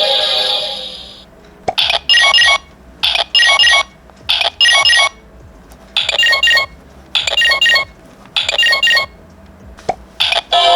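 Music fades out. Then a Kamen Rider Decade K-Touch transformation toy gives a string of electronic beeps: short clusters of quick high tones, about eight groups roughly a second apart, with a couple of clicks near the end.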